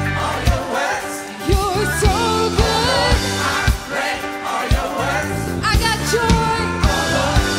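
Live contemporary worship music: singers with sliding, ornamented vocal lines over a band with drum kit, the drums keeping a steady beat of about two hits a second.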